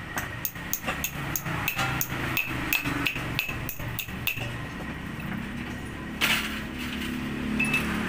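Steel hydraulic bottle jack being handled and set in place: a quick run of light metallic clinks, about three or four a second, then a short clatter about six seconds in.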